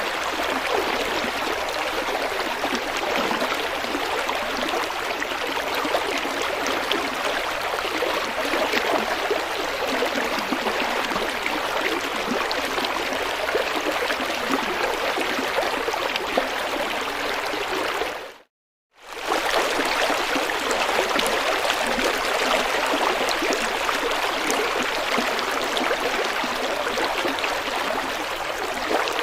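A river flowing, a steady rush of running water. About two-thirds of the way through, it drops to silence for under a second, then comes back.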